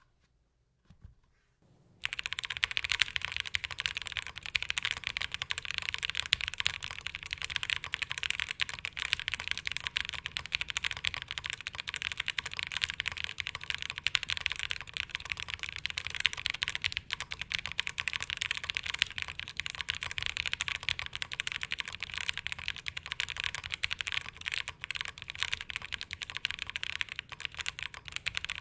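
Continuous fast typing on a Bear65 Alice-layout mechanical keyboard with Purple Cow switches on a polycarbonate plate, with the PCB cuts taped over and the case force-broken. It starts about two seconds in, a dense run of key clicks, and keeps a little hollowness, which the reviewer puts down to the empty space inside the case.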